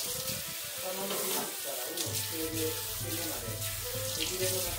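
Kitchen tap running steadily into a stainless-steel sink as blood is rinsed out of a gutted fish. Background music plays throughout, with a bass line coming in about two seconds in.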